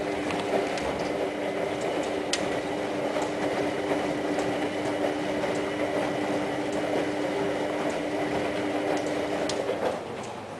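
Hoover Ökologic WA1000 De Luxe washing machine running with a steady mechanical hum and a few faint clicks. The hum stops near the end.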